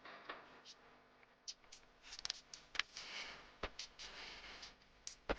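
Irregular light clicks and taps, with a stretch of soft rustling noise in the middle.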